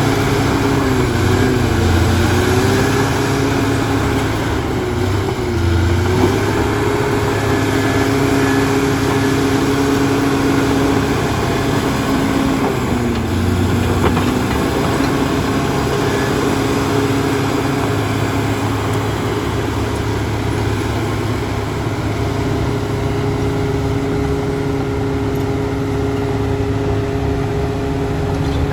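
Bulldozer's diesel engine running steadily, its pitch sagging briefly under load about two, five and thirteen seconds in.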